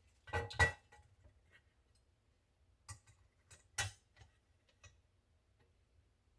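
Light clicks and taps of small metal parts and tools being handled on a workbench: a pair of clicks, then a scattering of sharper ones a few seconds later.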